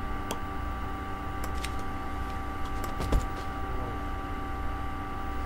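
Steady background hum with a low rumble, a few faint clicks, and one louder low thump about three seconds in.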